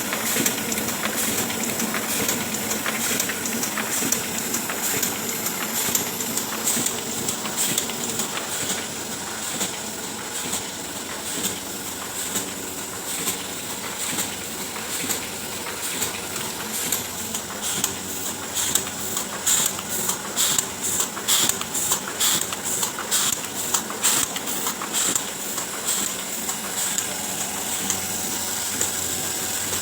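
Oliver 72 sheet-fed offset printing press running, a steady mechanical whir and hiss, with a run of regular sharp clicks from the sheet-feeding mechanism through the second half.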